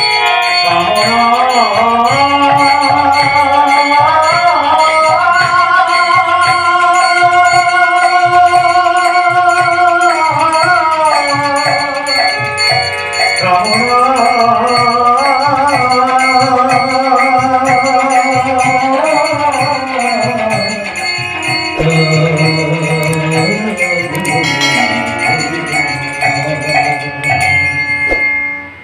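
Bengali devotional song: a male voice sings long held, gliding notes over a harmonium, with a two-headed hand drum keeping a steady beat and small hand cymbals ringing. The music stops abruptly just before the end.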